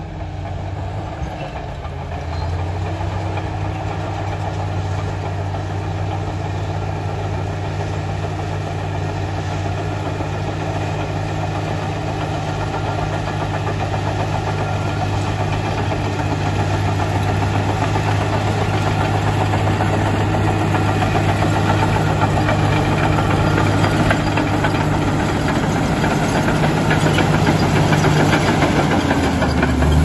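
Komatsu D85EX crawler dozer's diesel engine running under load at a steady pitch as the blade pushes and levels soil, growing gradually louder as the machine comes closer. Near the end the engine note dips briefly and then climbs again.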